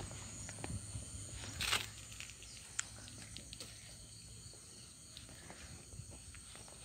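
Faint footsteps and handling noise of a hand-held phone while walking outdoors, with a brief hissing rustle just under two seconds in and a few small clicks.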